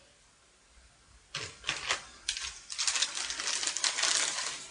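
Plastic instant-ramen packet crinkling as it is torn open: a few sharp crackles about a second and a half in, then a dense crinkling rustle for nearly two seconds near the end.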